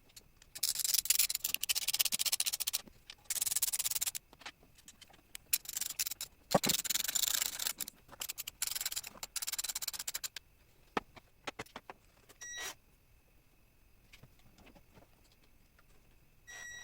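Socket ratchet clicking in several bursts of one to two seconds, with short pauses between, as a bracket is worked on. Two brief high tones follow near the end.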